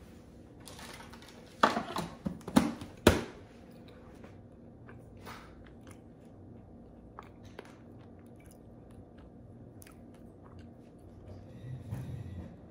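A person biting into and chewing a chocolate-coated cake close to the microphone, with a cluster of loud bites about two to three seconds in, then quieter chewing with small mouth clicks.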